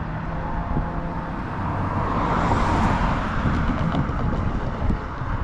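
A car driving past on the road: its tyre and engine noise swells to a peak about halfway through, then fades.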